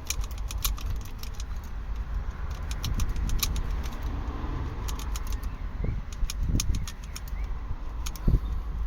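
Metal lock pick working inside a disc lock: quick, irregular light clicks and ticks as the pick is poked and raked against the lock's internals, several a second, with a few duller knocks near the end.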